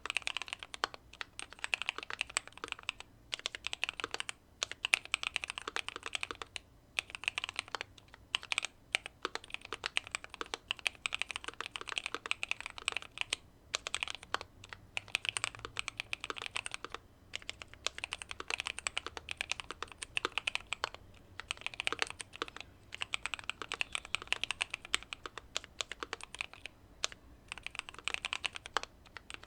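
Typing on a Keychron Q2 mechanical keyboard with factory-lubed Pearl Lemon switches, a tape mod and case foam: a fast, continuous run of keystrokes broken by short pauses every few seconds.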